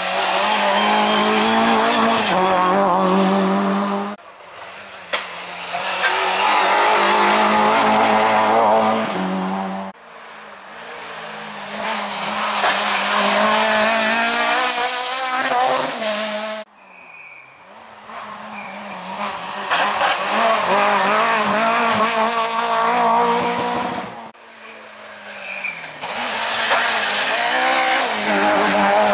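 Small front-wheel-drive rally hatchbacks, among them a Citroën Saxo and a Peugeot 106, passing one after another at full throttle, engines revving high and wavering up and down through gear changes and lifts. Five short passes, each cut off abruptly into the next.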